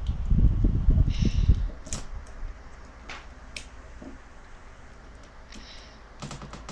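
Handling of the GX-31V Voltes V figure's parts while trying to peg them together: a loud low rumble of hands working the pieces close to the microphone for about the first second and a half, then a few sharp clicks and short scrapes of parts being pushed and fitted.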